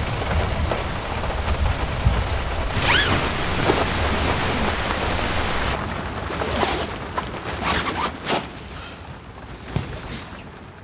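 Heavy rain beating on a tent's flysheet with a low rumble of thunder. The rain eases off about six seconds in, leaving a few soft knocks and rustles.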